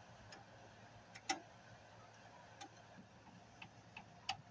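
A handful of irregular, sharp metallic clicks and ticks as a screwdriver works screws out of a flat screen TV's sheet-steel back cover, the loudest a little over a second in and a few more near the end.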